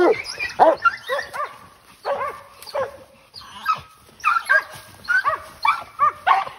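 Hog-hunting dogs barking fast and hard at a hog in the brush: short, sharp barks from more than one dog, overlapping, with a brief lull about halfway through.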